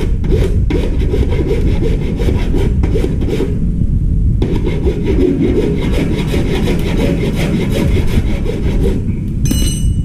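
Rapid rhythmic rasping strokes, like sawing or scraping, over a steady low rumble. The strokes break off briefly about four seconds in, and a short high-pitched chirp sounds near the end.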